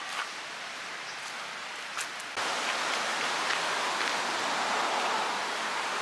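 Steady wash of water noise, stepping up louder about two seconds in.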